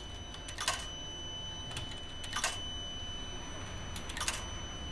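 Coins dropped one at a time into the coin slot of a coin-operated washing machine, three separate clinks a little under two seconds apart, over a faint steady high-pitched tone.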